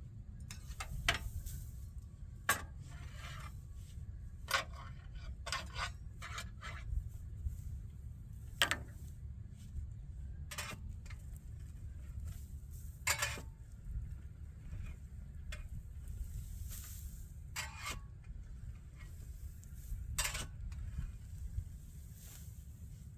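Irregular sharp clinks and scrapes, like metal knocking and rubbing on metal, over a steady low rumble.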